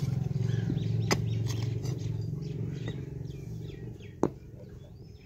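A low engine drone that fades away, with a few sharp knocks of a rod striking the ground, the loudest about four seconds in.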